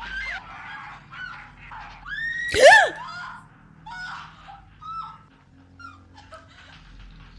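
A young woman screaming and whimpering in terror: a string of short, high wailing cries, the loudest a long scream that falls in pitch about two and a half seconds in.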